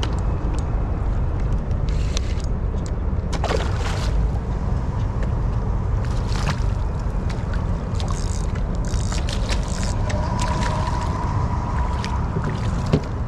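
A small fishing boat on the water: a steady low rumble with water noise, and scattered light clicks and knocks.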